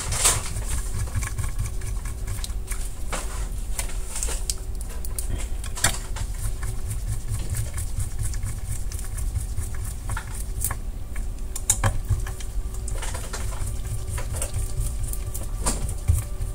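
Scattered small clicks and ticks of a screwdriver driving and tightening the screws that fasten parts inside an Xbox console, over a steady low rumble.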